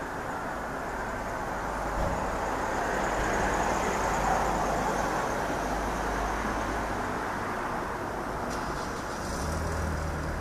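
Distant engine rumble: a steady broad noise that swells over a few seconds in the middle and eases off again, with a low hum growing near the end.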